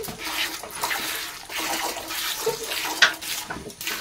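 Cow being milked by hand: jets of milk squirting from the teats into a metal bucket, a hissing splash about twice a second.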